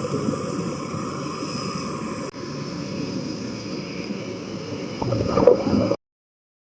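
Muffled, rumbling water noise with a rough churning texture, broken by an abrupt cut about two seconds in and swelling briefly before it stops dead about a second before the end.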